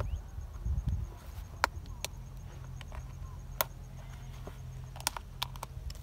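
Sharp clicks and taps of small plastic bait containers and lids being handled, a few spread out and a quick cluster near the end, over a low rumble.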